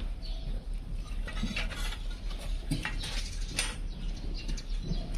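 Donkey shed ambience: scattered light clicks and knocks over a steady low rumble.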